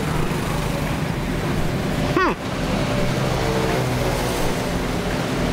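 Steady highway traffic noise, vehicles running past. About two seconds in, a short pitched sound swoops downward in pitch.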